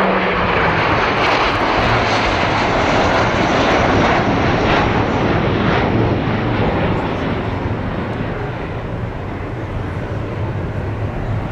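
Jet aircraft flying past: a loud rushing engine roar that swells over the first few seconds and then slowly fades as it draws away.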